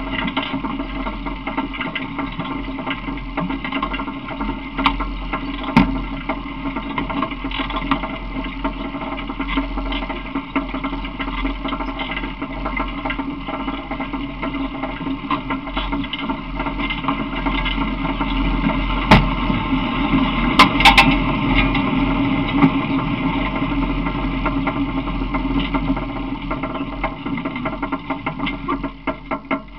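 Steady running noise of a small open vehicle in motion, a continuous mechanical drone with rattling, and a few sharp knocks about two-thirds of the way through.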